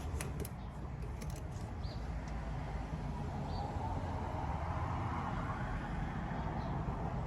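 Motor oil being poured from a quart bottle into the engine's oil filler, a partial top-up, over a steady low rumble. A few light clicks of bottle handling come in the first second or so.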